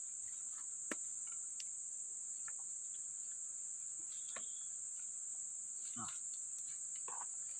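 Steady high-pitched insect chorus droning without a break, with a few light clicks and knocks.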